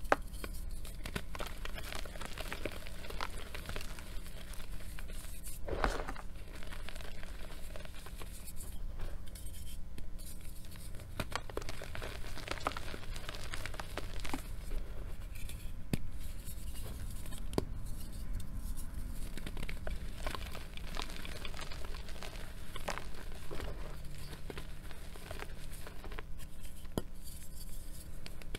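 Blocks of reformed gym chalk crushed and crumbled in the hands over a bowl of loose chalk powder: an irregular run of soft crunches and crackles, with a louder crunch about six seconds in.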